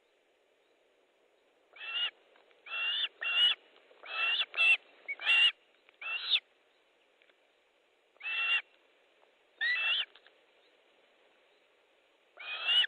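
Osprey calling: a run of about ten short, sharp whistled calls, bunched close together at first and then spaced a second or two apart.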